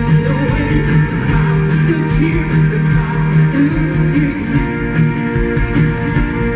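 Live band music played through a concert PA, with strummed guitar over bass and drums.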